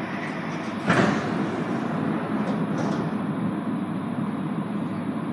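Rubber-tyred Montreal metro Azur train heard from inside the car, running steadily as it pulls out of a station, with a sharp thump about a second in after which the running noise is a little louder.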